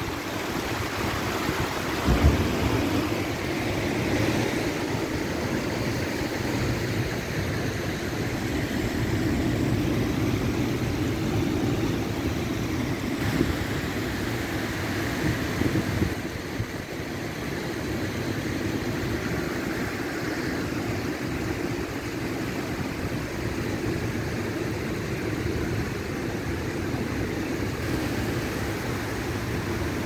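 Rough sea: the surf makes a steady, low rushing rumble that swells a little now and then.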